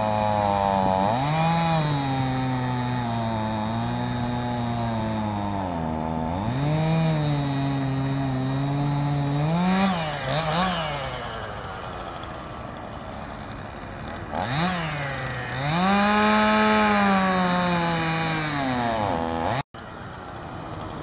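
Gasoline chainsaw cutting through a wooden utility pole lying on the ground, its engine revving up and dropping back several times. It cuts off abruptly near the end.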